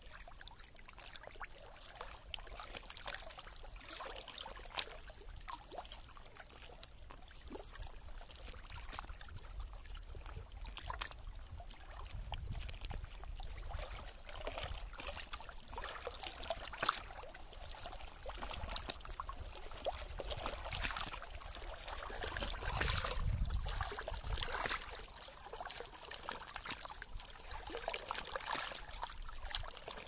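Lake water lapping and splashing over flat shoreline stones, trickling and bubbling as small waves wash across the rock and drain back, with many small sharp splashes. Two low rumbles come about twelve and twenty-three seconds in, the second the loudest part.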